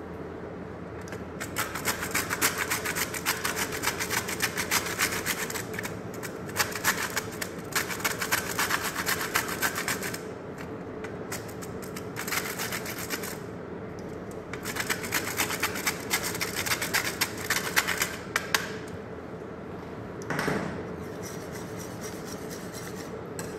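Whole nutmeg grated on a stainless steel box grater: fast rasping strokes in three runs of a few seconds each, with short pauses between, stopping a few seconds before the end.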